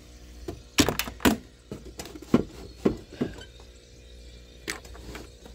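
A handful of sharp knocks and clicks, about six in four seconds, over a steady low hum.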